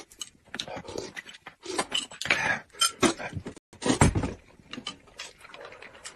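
Eating and tableware sounds: a metal spoon clinking against a glass mug and dishes in a run of short clicks, with noodles slurped from a bowl about four seconds in.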